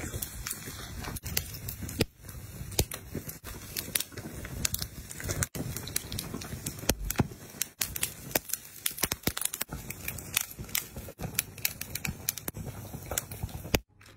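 Dense, irregular crackling and popping of skewered meat grilling over open flames, which cuts off abruptly near the end.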